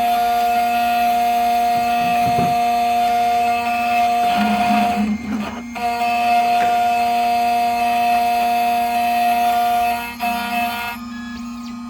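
XHORSE Dolphin XP005 key cutting machine's spindle motor running with a steady high whine while cutting a BMW HU92R key blade, with short breaks about five seconds in and again near ten seconds.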